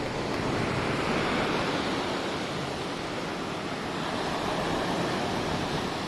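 Ocean surf rushing ashore, swelling twice as waves break.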